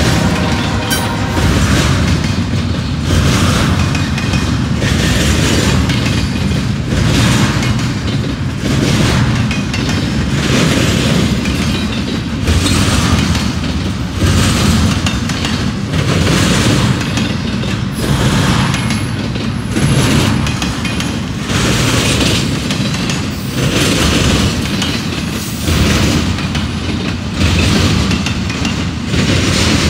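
Double-stack intermodal freight cars rolling past close by: a steady rumble with a regular clickety-clack of wheels over the rails about once a second. A held tone fades away about a second in.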